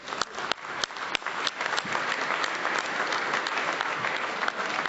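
Audience applauding. A few scattered claps in the first second swell into dense, steady applause by about two seconds in.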